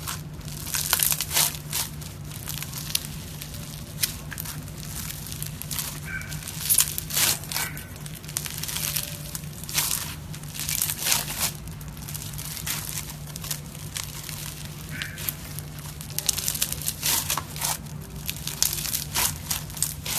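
Green slime being squeezed and worked by hand, giving irregular clusters of sharp crackling, popping clicks, with a steady low hum underneath.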